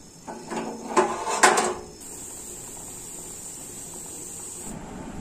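Kitchen clatter: pots and utensils knocking together for about two seconds, then a steady faint hiss.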